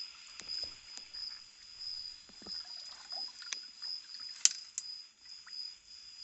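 Light water splashing and dripping as a hand net is swept through a shallow stream and lifted out, with small knocks and one sharp click a little after halfway. A steady high insect trill runs underneath.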